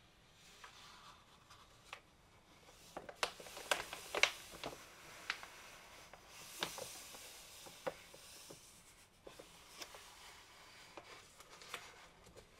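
Paper instruction booklet being handled and its pages turned: soft rustling with crisp paper crackles, busiest about three to five seconds in, then a page swish and scattered light taps.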